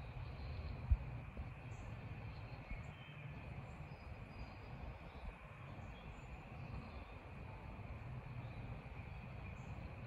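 Quiet spring woodland ambience: a steady faint high-pitched insect-like drone with scattered faint bird chirps over a low rumble, and one small knock about a second in.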